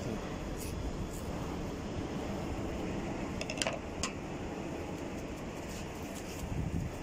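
A chef's knife cutting through a skinned catfish on a bamboo cutting board makes a few short clicks and scrapes, with a small cluster about halfway through. Under them runs a steady low rumbling background noise.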